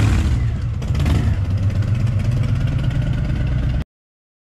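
Harley-Davidson V-twin cruiser motorcycle pulling away, its engine running with a deep, uneven low beat. The engine sound cuts off abruptly near the end.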